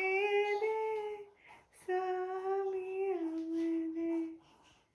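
A baby's long, sustained vowel-like cooing: two drawn-out notes held on a steady high pitch, the second stepping down in pitch partway through.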